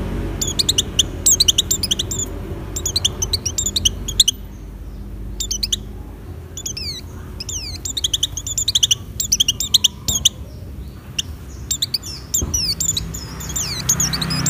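A white-eye (pleci) in breeding condition singing a fast, high twittering song: bursts of quick falling chirps, with a pause of about two seconds some four seconds in.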